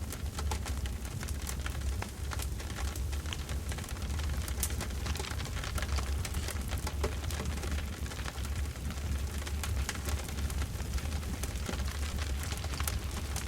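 Campfire crackling, with many small irregular pops and snaps over a low steady rumble.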